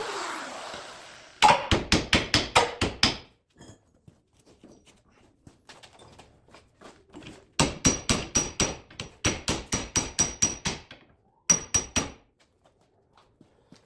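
Hammer striking metal in quick runs of blows, about five a second, in three bursts, with a high metallic ring on some strikes.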